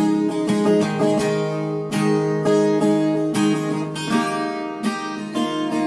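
Acoustic guitar strumming slow, sustained chords as instrumental worship accompaniment, with no voice.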